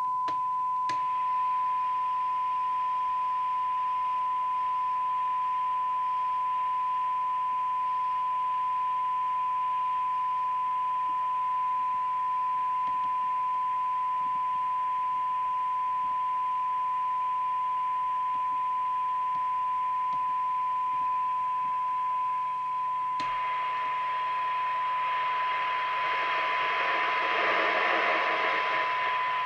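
Steady single-pitch test tone from a Team TS6M CE-Multi CB radio's loudspeaker, the signal generator's modulation being received during receiver alignment, over a faint hiss. The hiss grows louder for the last several seconds.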